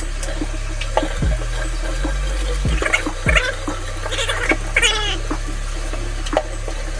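Dog whining in short high-pitched cries while being bathed, over the rush of running water.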